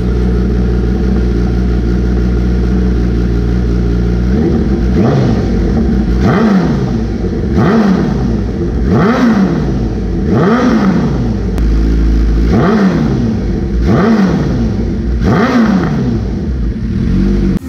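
Honda CBR1000RR Fireblade's inline-four engine, breathing through an aftermarket SC Project exhaust and mid pipe, idling steadily, then blipped about eight times from about four seconds in: each rev rises quickly and falls back to idle, roughly every second and a half.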